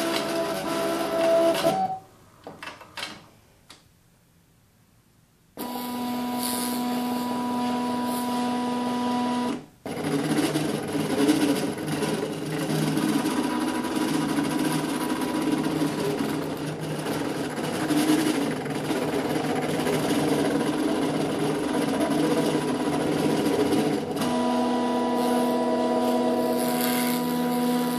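Cricut Imagine cutting machine's carriage motors running as it cuts out a printed image: a steady mechanical whine with a few pitches. About two seconds in it goes quiet for a few seconds apart from some clicks, then starts again and runs on with a short break.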